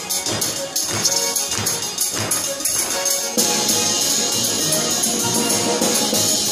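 Russian folk-instrument orchestra playing live, heard close up from among the players. A run of accented rhythmic strokes gives way, about halfway through, to the full ensemble swelling into a louder, sustained passage.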